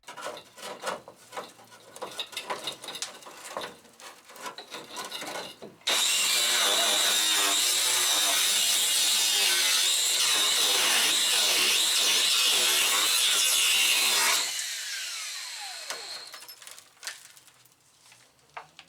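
Power cutting tool, likely an angle grinder with a cutting disc, slicing through the car's rusted steel floor pan. Loose knocks and clicks come first; then it starts abruptly and cuts steadily with a high hiss for about eight seconds. It stops with a falling whine as the disc spins down.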